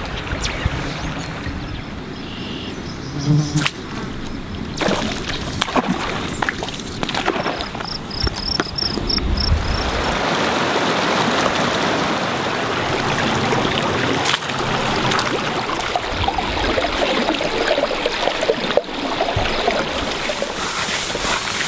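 Flowing stream water, a steady rushing and splashing, with a brief run of high chirps partway through.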